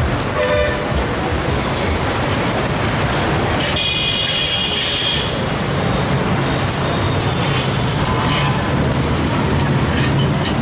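Steady traffic and street noise around a large flat griddle of cooking dosas, with a short high-pitched tone about four seconds in.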